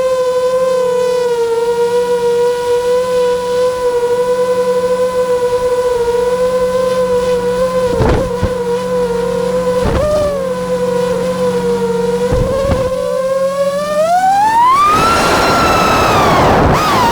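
Multirotor drone propellers and motors humming at a steady pitch, with a few brief knocks. About fourteen seconds in they throttle up: the hum rises sharply in pitch, turns rougher, and wavers near the end.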